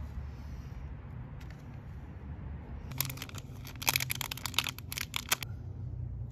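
A quick run of small plastic clicks and rattles as an LED taillight bulb is worked out of a motorcycle's taillight socket by hand, starting about three seconds in and stopping after two or three seconds.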